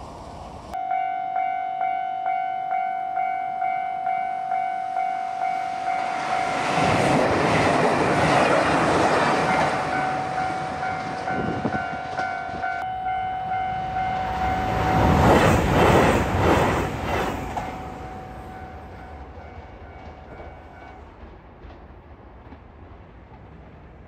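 Japanese level-crossing warning bell ringing steadily, about two strokes a second. A JR Shikoku 2700 series diesel train passes the crossing, its wheels clacking over the rail joints, loudest about two-thirds of the way in. The bell fades and stops a few seconds before the end.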